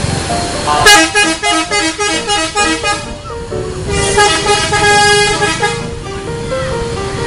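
Indonesian bus 'telolet' musical air horn playing a tune: a quick run of short alternating notes from about a second in, then longer held notes after a brief pause, over the rumble of the bus and street.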